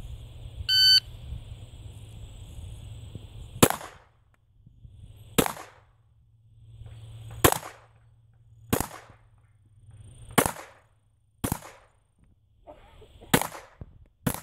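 A shot timer beeps once about a second in, then a Browning Buck Mark .22 semi-automatic pistol fires eight single shots at an uneven pace, one every second or two, starting a few seconds after the beep.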